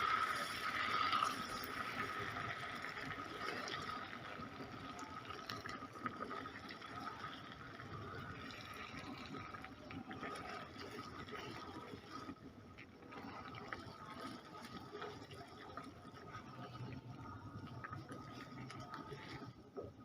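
Liquid sounds from caramel cooking in a saucepan: a steady bubbling, watery noise with a faint steady whine behind it, louder in the first few seconds.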